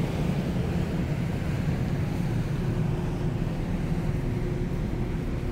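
Steady low drone of a large Sunflower car ferry's engines and machinery as the ship berths alongside the quay. A faint steady higher hum joins in about halfway through.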